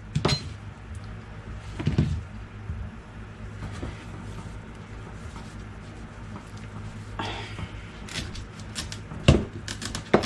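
Kitchen knife working through raw butternut squash on a cutting board: a few sharp knocks of the blade on the board, the loudest a little after 9 seconds in, with a brief scrape in between.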